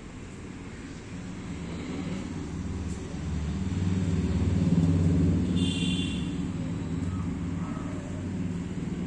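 An engine on heavy machinery running, growing louder to a peak about halfway through and then easing off. A brief high-pitched squeal is heard a little after the middle.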